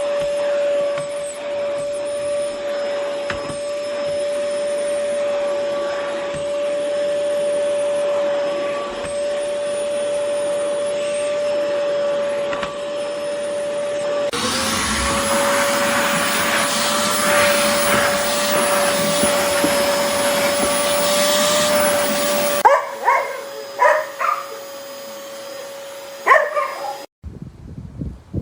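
Oreck XL Pro 5 canister vacuum running with a steady whine. About halfway through, the suction noise turns louder and rougher for some eight seconds, then eases back with a few short sharp sounds. The motor cuts off near the end.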